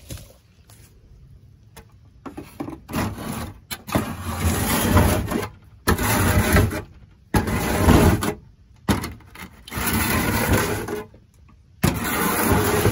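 A scoop shovel scraping soiled bedding and chicken droppings across a coop floor, in about six long noisy strokes starting a couple of seconds in.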